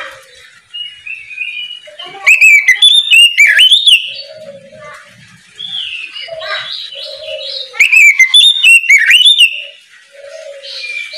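Oriental magpie-robin (kacer) singing its loud 'ngeplong' song: two loud runs of rapid, sweeping whistled notes, about two seconds in and about eight seconds in, with softer warbled phrases between them.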